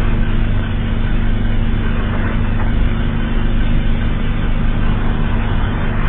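Loud, steady low droning buzz with a grainy hiss over it, holding without change: a mock emergency alert system alarm tone.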